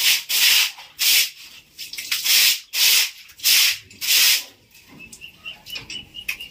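Stiff stick broom scrubbing in short hissing strokes, about one a second, that stop near the end.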